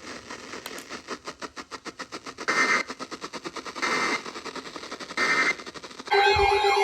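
Three short bursts of Emergency Alert System end-of-message data tones, the warbling digital code sent after a weather radio alert, about 1.3 seconds apart over a rapid clicking static. Just before the end a wailing siren over a steady tone cuts in.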